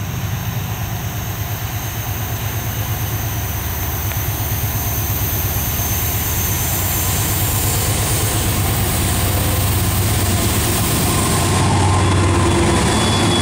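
Three BNSF GE Dash 9-44CW diesel locomotives pulling a freight train under power. A deep, pulsing engine rumble grows louder as they approach, and is loudest as the lead units pass near the end.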